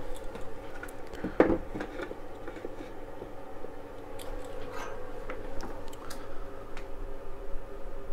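Handling noises: small clicks and knocks as an opened radio-control transmitter is set into a clamp for soldering, with one louder knock about a second and a half in, over a faint steady hum.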